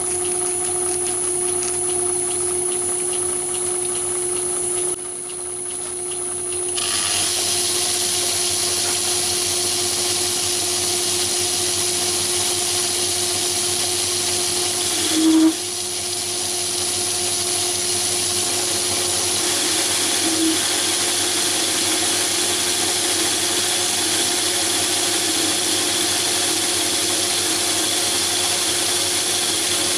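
Myford lathe running under power with its chuck spinning, a steady hum with a hiss over it. The hiss grows stronger about seven seconds in. There is one brief louder bump about halfway through.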